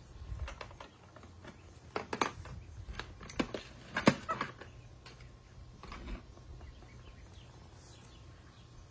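Tools and a steel chain clattering in a plastic toolbox as a capuchin monkey rummages through it: a run of sharp clicks and knocks from about two seconds in, the loudest near four seconds, then a last knock and it goes quiet.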